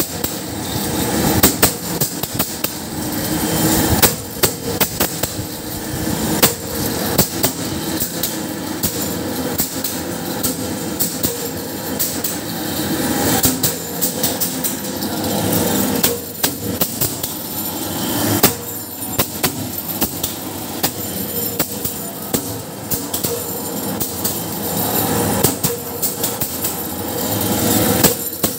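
Round-nut tapping machine for M6 nuts running, with a steady machine hum under frequent, irregular metallic clacks and knocks.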